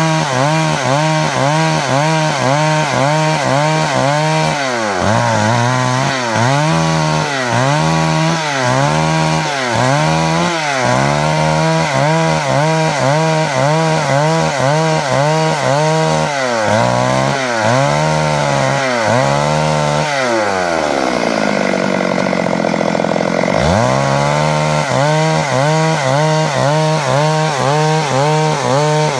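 Stihl MS 382 two-stroke chainsaw ripping lengthwise along a log, its engine pitch rising and falling about once a second as the bar cuts. About three-quarters of the way through the pitch sags low for a couple of seconds, then climbs back.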